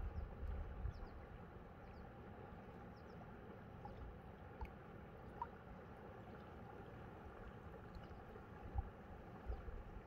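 Shallow river water flowing around rocks at the bank: a quiet, steady wash of water. Low wind rumble on the microphone in the first second or so.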